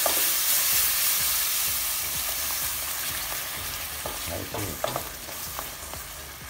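Ground masala gravy sizzling in hot butter and oil in a stainless steel kadhai while a spatula stirs it. The sizzle gradually dies down as the wet paste spreads through the pan, with a few spatula scrapes against the pan a little past the middle.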